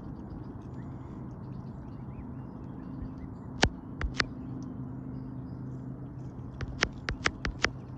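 Mute swans' bills striking the rock as they peck up seed, making sharp clicks: three a little before halfway, then a quick run of about six near the end. A steady low hum lies underneath.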